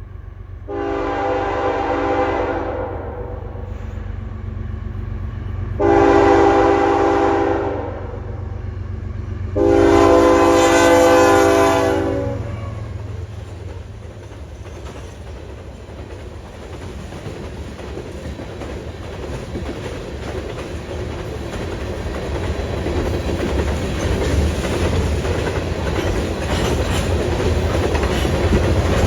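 Freight locomotive horn sounding three long blasts, each a couple of seconds, over the low rumble of the approaching train. After the horn the rumble and clatter of the train grow steadily louder as it nears.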